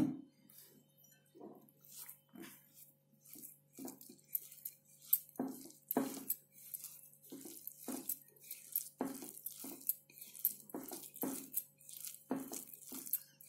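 Fingers kneading a wet mix of ground flaxseed and sesame powder in a bowl: soft, irregular squishing and scraping strokes, about one or two a second, as the paste is rubbed against the bowl's surface.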